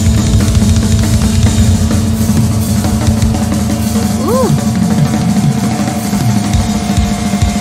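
Live rock music with a drum kit prominent, bass drum and snare hits over steady held notes, with a short tone rising and falling about halfway through.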